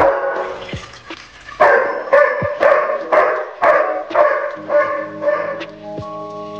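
A dog barks about nine times, roughly two barks a second, over water pouring from a kettle into a pot. Background music with held notes comes in near the end.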